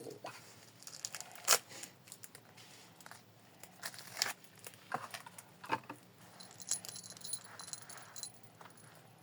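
Scattered clicks, taps and rustles of a Pokémon card package being opened and handled, with a stretch of thin, crinkly hiss from about two-thirds of the way through.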